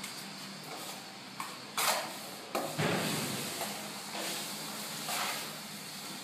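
Steel plastering trowel sliding and scraping over a wall of white set finish plaster laid on sand and cement, in a few separate strokes; the loudest come about two and three seconds in.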